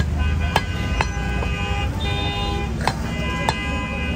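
Heavy cleaver chopping mutton on a wooden log chopping block: about five sharp chops, unevenly spaced. Vehicle horns honk repeatedly over a low traffic rumble behind them.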